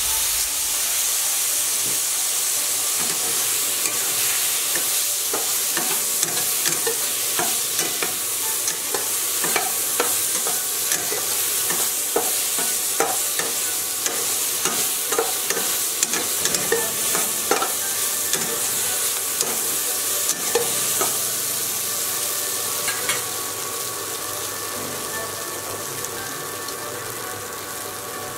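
Cut taro stolons sizzling in oil in a stainless-steel kadai while a spatula stirs them, scraping and clicking against the pan. The scraping stops about three quarters of the way through, and the sizzle eases off over the last few seconds.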